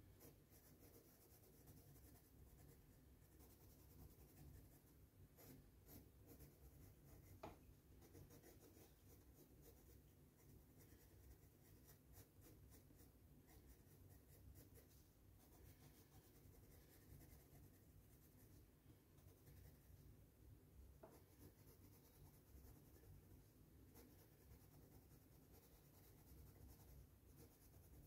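Faint, steady scratching of a Crayola colored pencil shading on sketchbook paper, with two soft clicks along the way.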